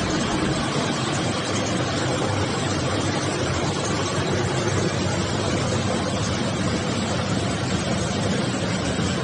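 Canning line machinery running with a steady, dense mechanical noise.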